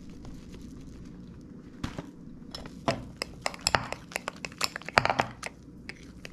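A metal spoon stirring thick beer batter in a ceramic bowl, clinking and scraping against the bowl in quick irregular clicks from about two seconds in.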